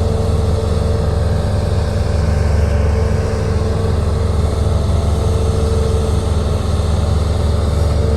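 Heavy machinery engine running steadily at constant speed, a deep even drone with a faint steady whine above it that comes and goes.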